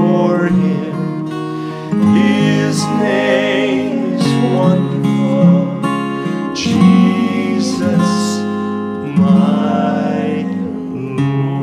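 Acoustic guitars strumming under several men's voices singing a slow gospel chorus in long held notes.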